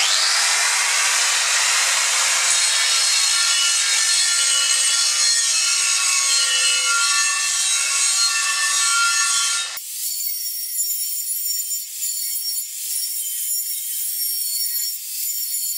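Angle grinder disc back-gouging a steel weld seam: a continuous grinding rasp with a steady whine from the disc biting into the metal. About ten seconds in, the sound abruptly turns higher, thinner and quieter.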